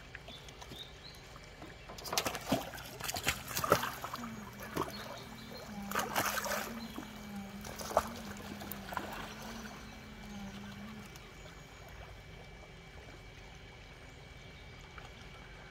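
Humboldt penguins diving into a pool: splashes and sloshing water in clusters about two to four seconds in and again around six seconds in, a couple of single splashes after, then gentler lapping. A low steady hum runs underneath for several seconds in the middle.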